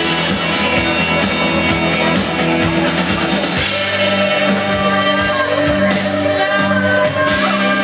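Recorded music with a singing voice and a steady beat, played loud over a DJ's sound system; about three and a half seconds in it moves into a new section with long held bass notes.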